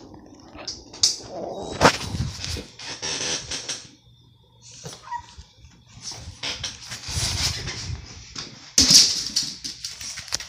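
A pug moving about, with rustling and scattered clicks and two sharp knocks, one about two seconds in and one near the end.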